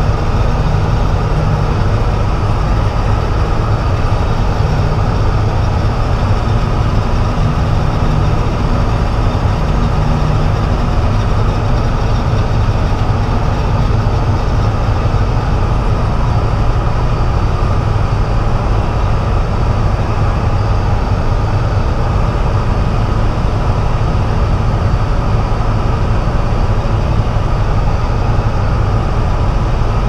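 Peterbilt semi truck's diesel engine heard from inside the cab, running steadily in a low, even drone with cab rattle and road noise as the truck creeps along the field.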